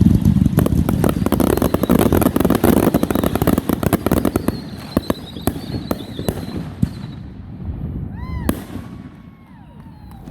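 Fireworks going off in a dense, rapid crackling barrage of many pops, thinning out to scattered bangs after about five seconds.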